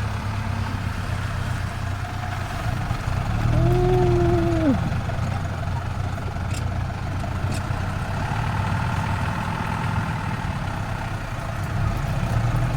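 Off-road vehicle's engine running steadily under rough-track ride noise, with one long drawn-out call about four seconds in that rises, holds and falls away.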